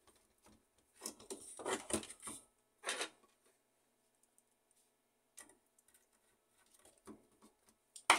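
Small screws being driven into an HP LaserJet M607 fuser assembly with a hand screwdriver: short scraping and clicking bursts of the screwdriver and screws against the plastic and metal frame. Near the end there is a sharp knock as the screwdriver is put down on the wooden bench.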